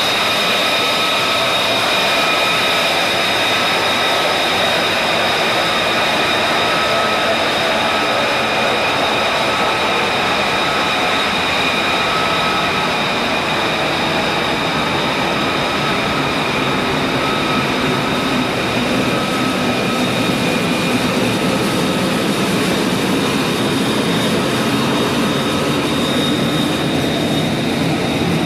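F-35B Lightning II's Pratt & Whitney F135 turbofan engine running with a steady roar and a high, steady turbine whine.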